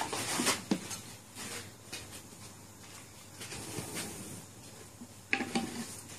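Elephants moving among the dining tables: scattered soft knocks, rustles and light clatter, with a louder burst about five and a half seconds in.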